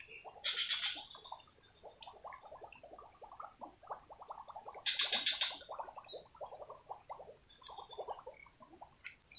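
Fishing reel being cranked as a lure is worked back across a swampy channel, giving an uneven run of soft ticks. Two brief bird chirps come over it, about half a second in and about five seconds in.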